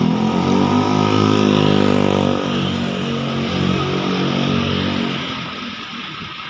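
A motorcycle engine running as it rides past close by, its note shifting slightly in pitch, then fading away over the last second or two.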